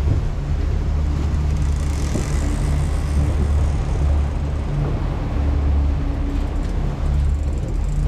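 World Cat 325CC catamaran's outboard engines running with a steady low drone, over the rush of water and wind.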